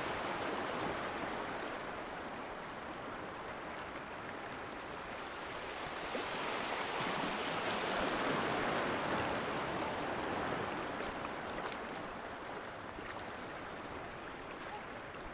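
Small waves washing gently over a rock shelf at the water's edge: a soft, steady wash that swells and eases, fullest around the middle.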